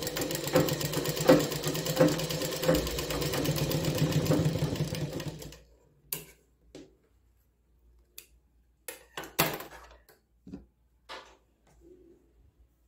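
Sewing machine stitching a seam at a steady pace, with a regular tick, then stopping about five seconds in. After it, a few short sharp snips of scissors cutting the thread and soft rustles of fabric being handled.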